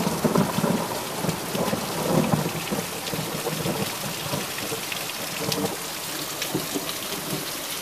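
Heavy downpour during a thunderstorm: a steady hiss of rain with water pouring off the roof edge, under a low rumble of thunder that is strongest in the first few seconds.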